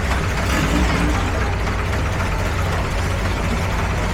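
Boat engines running steadily with a low rumble in a jam of boats on a canal.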